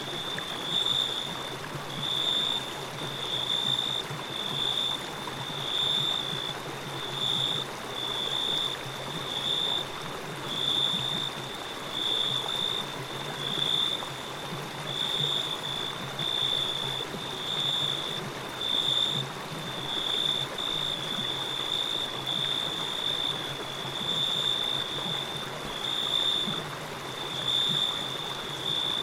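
Steady rush of flowing water like a stream. Over it, a high, thin insect chorus pulses evenly, about once every three quarters of a second.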